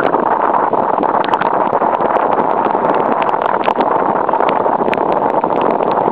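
Wind buffeting the microphone and water rushing along the hull of a sailing keelboat heeled hard in a blow, a loud steady noise with scattered small clicks.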